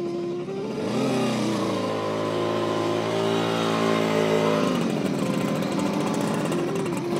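Motorcycle engine rising in pitch about a second in, running steadily, then cutting off about three and a half seconds later, over background music.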